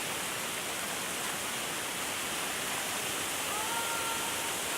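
Steady rushing water, a continuous even hiss, with a short high note rising and then holding about three and a half seconds in.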